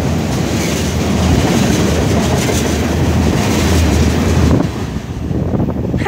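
Freight train of tank cars rolling past close by: a loud, steady rumble and wheel clatter. It drops off sharply about four and a half seconds in as the train moves on.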